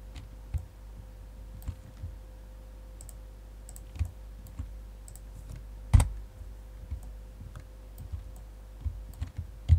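Irregular clicks of a computer mouse and keyboard, roughly one a second, the loudest about six seconds in, over a steady low hum.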